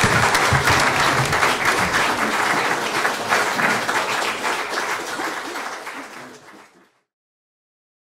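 Audience applauding, many hands clapping, fading out and stopping about seven seconds in.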